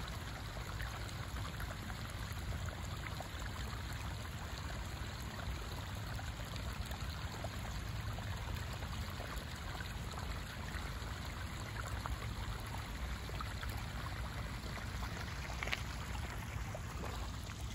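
Small stream of rainwater running steadily down a narrow grass channel, with a low rumble beneath it.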